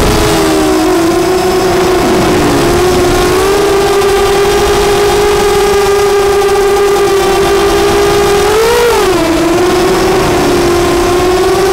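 FPV quadcopter's four Emax 2208 2000 KV brushless motors spinning 6-inch HQ 6045 props: a loud, steady buzzing whine with rushing air beneath it. About nine seconds in the pitch swells up and drops back as the throttle is punched, and it begins to rise again near the end.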